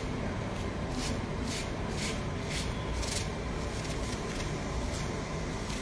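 A large Chinese painting brush swishing across paper in a run of short strokes, about two a second, as a broad banana leaf is painted in side-brush strokes. There is a steady low background hum underneath.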